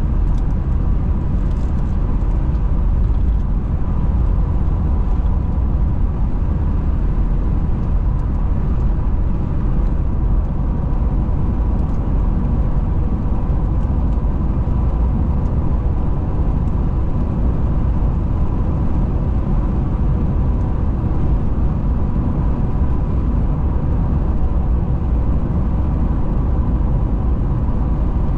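Car driving at a steady speed: a constant low rumble of tyres and engine, with a faint steady whine running through it.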